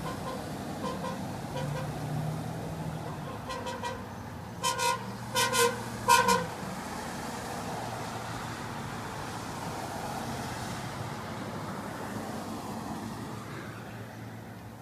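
Vehicle horn sounding a series of short toots on one note: a few light taps, then three pairs of louder toots about five to six seconds in. Steady street traffic hums underneath.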